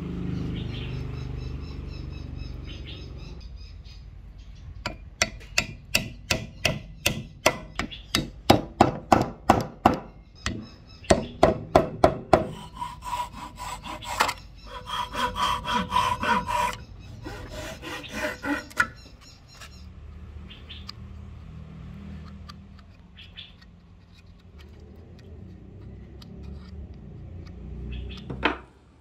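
Small hand saw cutting through a wooden dowel in quick, even back-and-forth strokes, starting about five seconds in and stopping a little past the middle, with softer rubbing and handling of wood before and after.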